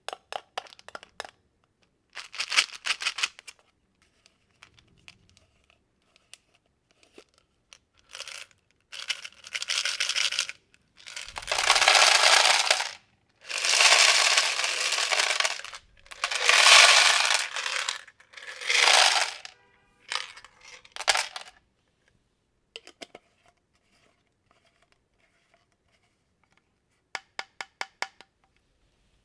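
Small hard candies clattering as they are poured and dropped into a plastic tub, in short runs of rapid clicks, with several longer rushing pours in the middle.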